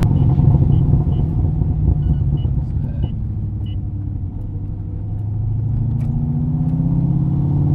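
2013 Corvette Grand Sport's 6.2-litre LS3 V8, fitted with long-tube headers and straight pipes, rumbling at low revs, then climbing in pitch again under acceleration from about five seconds in.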